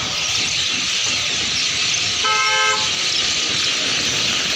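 A large flock of birds roosting in a tree keeps up a dense, loud, continuous chatter. About halfway through, a short horn blast sounds for half a second.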